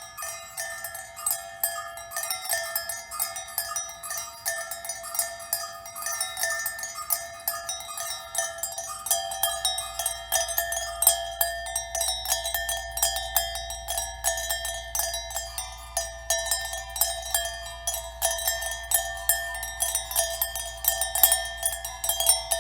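Dense, irregular stream of ringing, bell-like strikes at many different pitches, all high with no low notes, several sounding at once. A low steady hum joins about nine seconds in.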